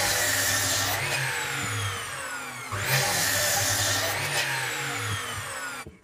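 Electric mitre saw slicing discs off a tree branch, twice: each cut is a loud burst of the spinning blade tearing through the wood, followed by the motor's falling whine as the blade spins down.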